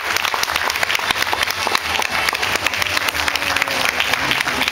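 Audience applauding, dense irregular clapping that goes on steadily.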